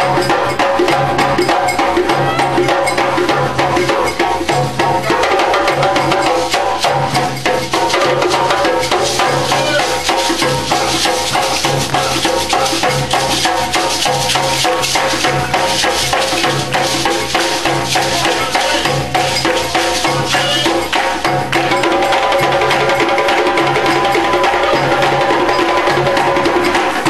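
Live percussion-driven music: drums keeping a pulsing low beat under a dense clicking, rattling rhythm, with sustained pitched tones running through it.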